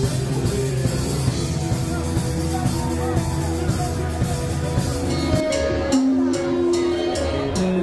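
Live rock band playing electric guitars and a drum kit. About five and a half seconds in, the music changes abruptly to a sparser passage of held notes and sharp regular hits.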